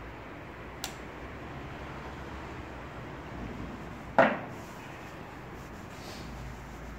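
Hand work on a bare four-cylinder engine block being assembled: a light click about a second in and a louder knock of metal about four seconds in, over steady background noise.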